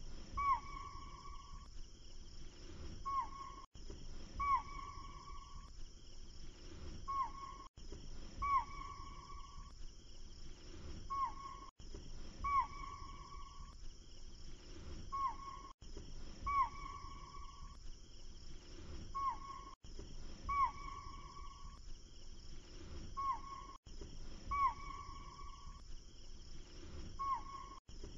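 A short recording of animal calls looped over and over. About every four seconds the same pair comes again: a short call, then a longer held call that first drops in pitch, with a brief cut-out of the sound at each repeat.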